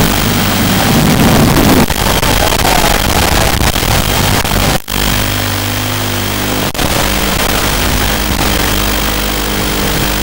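Steady hiss of an analog FPV video link with the racing quadcopter's motor and propeller whine under it, changing in pitch a few times with throttle. The sound cuts out briefly a little under halfway through, and again for an instant shortly after.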